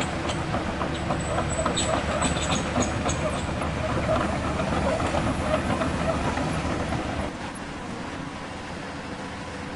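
RC hydraulic scale-model excavator (CAT 336) running, its hydraulic pump driving the tracks, swing and boom while the tracks clatter with many small clicks over the rocky ground. The noise drops noticeably about seven seconds in.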